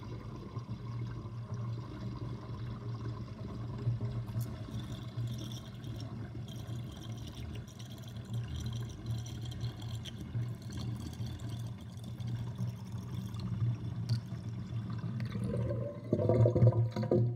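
Kitchen sink water draining through a 56.5 mm sink plug with the overflow covered, gurgling steadily. Near the end the gurgle grows louder and fuller as the last of the water goes down, then fades out.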